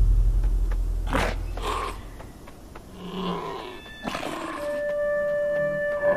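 Snarling and growling of a zombie deer from the film's sound design: short rasping snarls about a second in, then a lower growl. A deep rumble fades away over the first two seconds, and about four and a half seconds in a held high note from the score comes in and stays.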